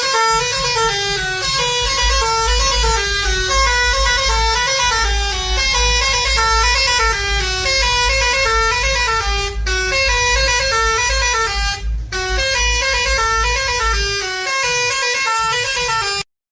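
Bus musical horn playing a repeating melody of stepping pitched notes over a low rumble, dipping briefly about twelve seconds in and cutting off suddenly near the end.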